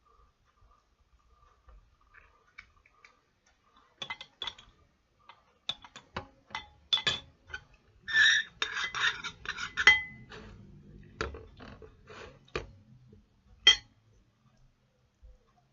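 A spoon clinking and scraping against a plate in a quick, irregular run of clicks and knocks, busiest in the middle, then stopping.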